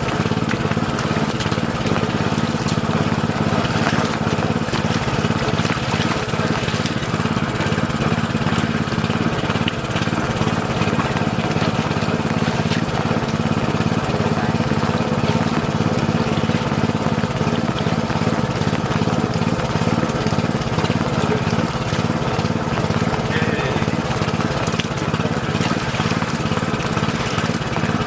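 Small engine-driven water pump running steadily at an even speed while pumping water.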